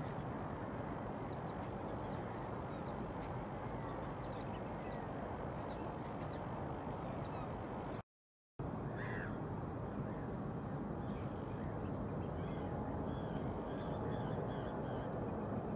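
Steady outdoor background noise with distant birds calling along the shore; the calls come as a run of short repeated notes in the second half. The sound drops out for a moment about halfway through.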